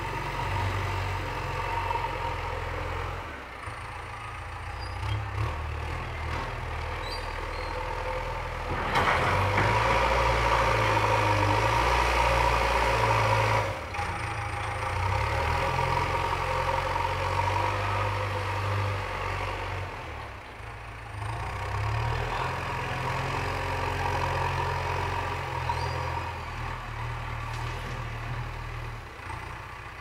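JCB 3DX backhoe loader's diesel engine running while the machine works, revving up under load for about five seconds about a third of the way in and then dropping back abruptly.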